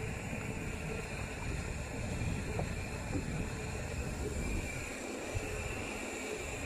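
Wind buffeting a handlebar-mounted phone's microphone, with tyre noise on asphalt, as a mountain bike rolls along a paved road. The low rumble drops away for about a second near the end.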